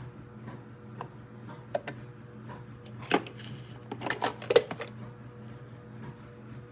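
Scattered sharp clicks and knocks of things being handled, loudest as a clatter about three seconds in and again between four and five seconds in, over a steady low hum.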